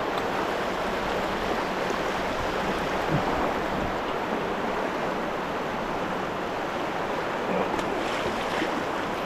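The Salmon River's current rushing steadily.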